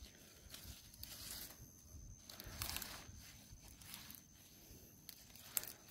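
Faint rustling and crackling of white radishes and their leafy tops being handled and laid out on a rock, with a sharp click near the end.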